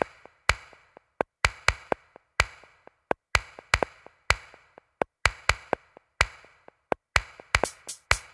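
Background music: a sparse electronic beat of sharp, clicky percussion hits, which gets busier near the end.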